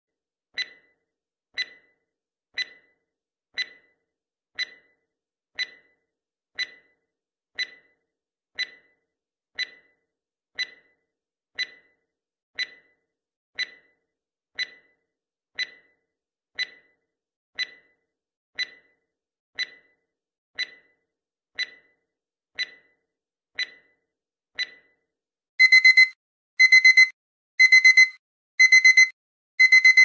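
Countdown timer sound effect: a short tick once a second, 25 in all. About 25 seconds in, a much louder digital alarm-clock beep takes over, on one high tone, in groups of quick beeps about once a second, as the timer reaches zero.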